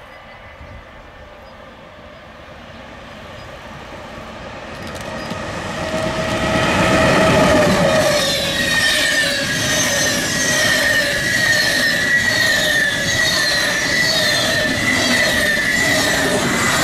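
A train approaching and running past, growing louder over the first few seconds and then staying loud. Its wheels give off steady high-pitched squealing tones, with a regular clatter as the cars go by.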